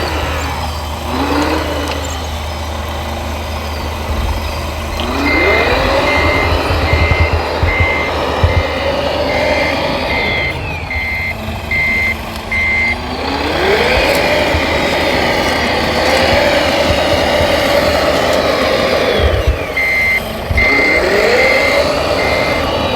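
Radio-controlled model trucks driving: a whine that rises as a model speeds up, holds steady, then falls as it slows, several times over. An electronic reversing beeper sounds about twice a second while a model backs up, once in the middle and again near the end.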